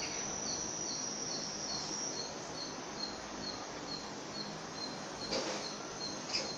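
Insect chirping steadily, about two to three short high chirps a second, over a steady high-pitched buzz. Two brief soft knocks come near the end.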